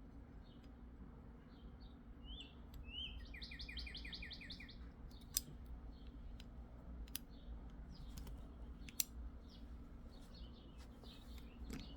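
Faint bird chirps throughout, with a quick trill of about eight notes about three seconds in. In the second half come three sharp clicks, about two seconds apart, from the revolver's hammer and trigger parts being worked by hand.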